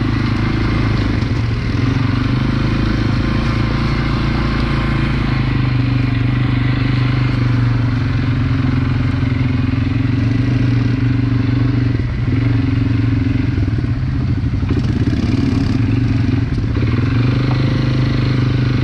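ATV engine running steadily under way, a loud even drone that holds its pitch, with a brief dip about twelve seconds in.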